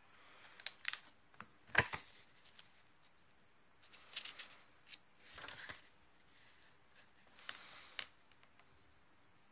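A hardcover journal being handled and leafed through: a few taps and knocks on the cover as it is opened, then two short rustles of paper pages turning, and two light clicks near the end.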